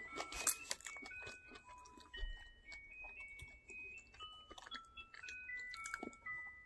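A Christmas musical clock going off, playing an electronic melody of clean, steady notes that step up and down, often two at a time. Faint chewing clicks sound over it.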